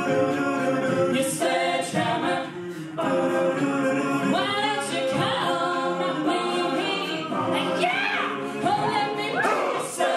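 Male a cappella group singing: backing voices hold chords under an amplified lead singer, whose line slides up and down in runs near the end.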